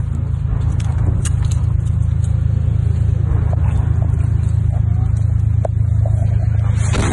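Steady low drone of a vehicle engine, with light rattling and clicking over it; it cuts off abruptly at the end.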